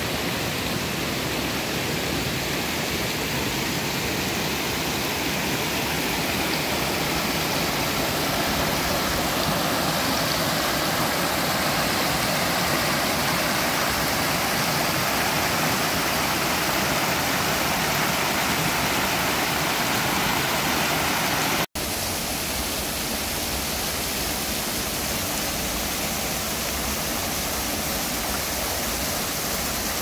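Mountain stream rushing over boulders and small cascades, a steady rush of water; it cuts out for an instant about two-thirds of the way through.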